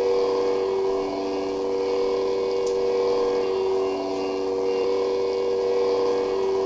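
Lightsaber idle hum played by its Crystal Focus 4.31 sound board with the blade lit: a steady drone of several held low tones, swelling slightly about a second in and again around four seconds.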